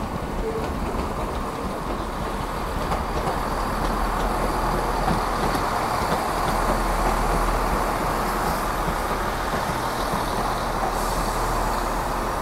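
Passenger train running through the station, a steady mechanical rumble that grows a little louder toward the middle and then eases slightly.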